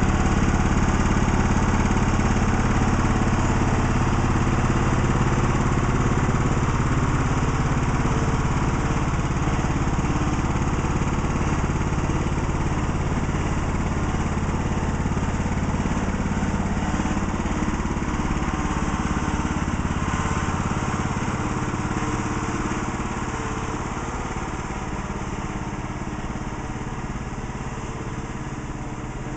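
Cub Cadet riding lawn tractor's engine running steadily while it tows a wheeled chicken coop, fading over the last third as it moves away.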